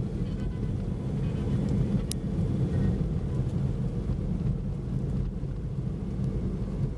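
Car driving on a snow-covered road, heard from inside: a steady low rumble of engine and tyres, with one brief click about two seconds in.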